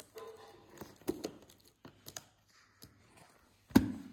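Small spring-loaded thread snips cutting packing tape on a cardboard box, heard as scattered clicks and short scrapes, with one sharper knock a little before the end.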